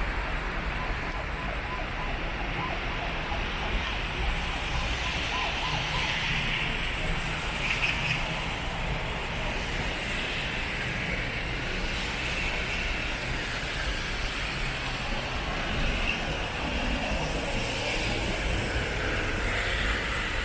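Steady city street noise in the rain: road traffic forming a continuous wash with a low rumble and no single standout event.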